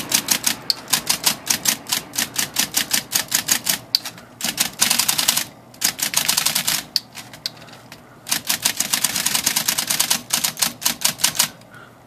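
Mid-1960s Smith Corona electric typewriter being typed on in quick runs, the type bars striking at about five or six a second, with short breaks about four, six and eight seconds in and stopping just before the end. It is a test typing after a binding D key was freed, and the keys are striking freely.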